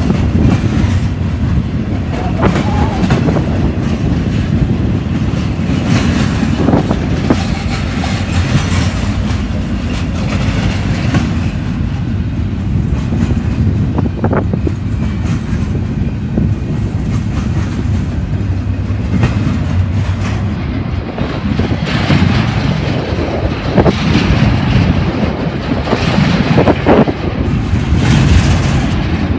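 Double-stack freight train's container well cars rolling past: a loud, steady rumble of steel wheels on rail, with occasional knocks.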